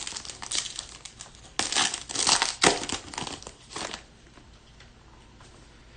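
Foil wrapper of a Panini Certified football card pack crinkling and tearing as it is ripped open, for about four seconds, loudest in the middle, then stopping.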